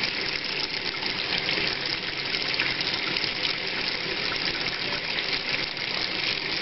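Water running and splashing steadily into a kitchen sink: salt water being poured off from a plastic measuring cup, with a thin stream of water running into the drain.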